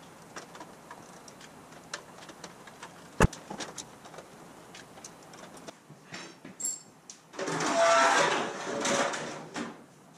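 Small clicks and taps of a hand tool working at the rivet holes of a thin aluminum dashboard panel, with one sharp snap about three seconds in. About seven and a half seconds in, the loudest part: the thin sheet-aluminum panel rattles, rubs and rings briefly for about two seconds as it is moved and set in place.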